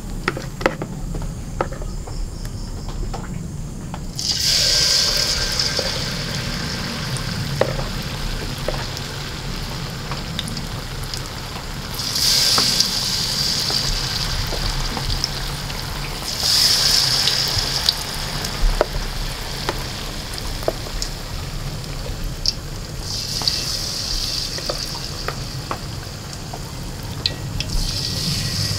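Jackfruit fritters in wheat-flour batter deep-frying in a wok of hot oil: a steady sizzle that surges loudly five times as spoonfuls of batter go into the oil. The first few seconds are quieter, with a few light clicks.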